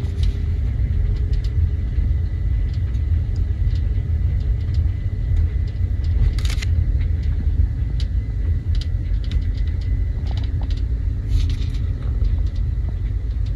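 Volvo S80 driving over uneven road, heard from inside the car: a steady low road rumble with scattered sharp clicks and crackles, in denser bunches about six and a half and eleven and a half seconds in. The clicks come from two overlapping spot-welded metal panels at the rear of the trunk working against each other over bumps.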